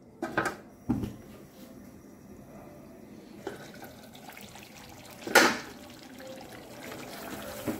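Butter chicken gravy simmering with a faint bubbling in a covered aluminium pot, with a couple of light knocks near the start. The aluminium lid is lifted off, with one loud sharp metal clank about five seconds in.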